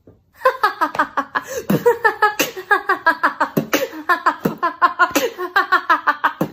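A woman laughing hard: a long, unbroken run of quick, even 'ha' pulses, about four a second.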